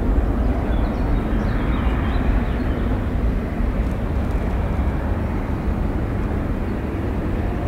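Steady jet aircraft noise, a broad rumble that fades slightly toward the end.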